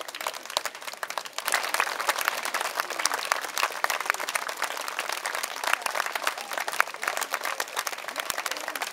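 Crowd applauding, many hands clapping in a dense, steady patter that grows fuller about a second and a half in.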